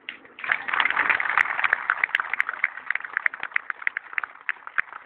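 Crowd applauding: hand claps start about half a second in, dense at first, then thin out to scattered claps.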